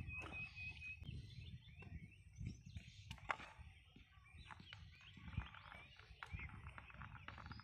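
Quiet outdoor ambience: scattered bird chirps over light rustling and handling noise, with a single sharp click a little over three seconds in.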